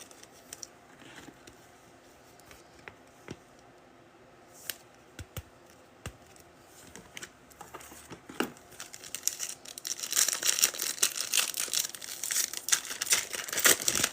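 A few light taps and clicks, then from about ten seconds in, loud crinkling and tearing as a foil trading-card pack wrapper is ripped open.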